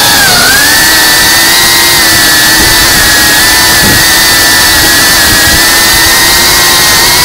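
FPV racing drone's brushless motors and propellers whining at a steady pitch in cruise, with a brief dip in pitch at the start.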